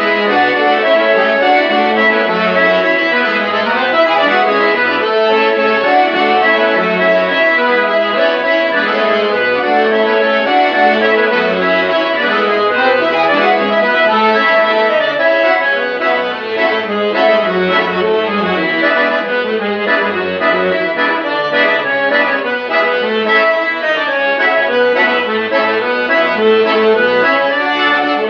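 Accordion playing a traditional tune, reed chords and melody over pulsing bass notes.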